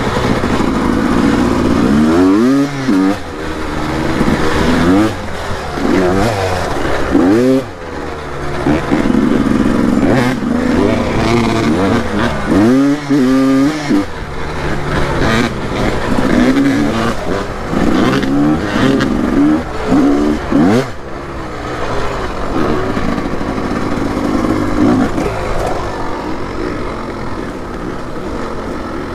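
Small dirt bike engine revving up and down over and over as it is ridden, its pitch climbing and dropping every second or two. After a sharp rev about 21 seconds in it settles into a steadier, slightly quieter run.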